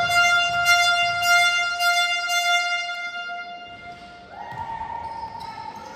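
A horn sounding one long, steady note for about four seconds, then a second, higher note starting a little past four seconds in.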